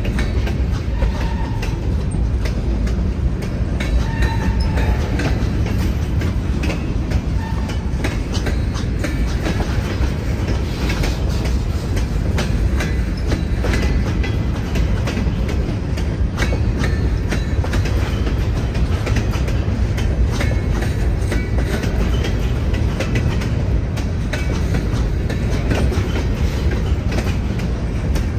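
Freight train rolling past: a steady low rumble with rapid, irregular clicking of wheels over the rail joints.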